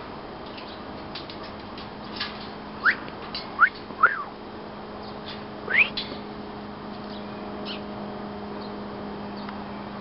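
Bird whistling: four short, clear whistles that sweep upward in pitch, between about three and six seconds in, the third rising and then falling back, over a steady low hum.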